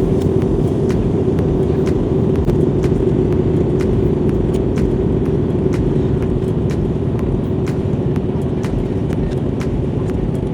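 Jet airliner engines and airflow heard from inside the cabin: a loud, steady roar with a constant hum, and many faint, sharp ticks throughout.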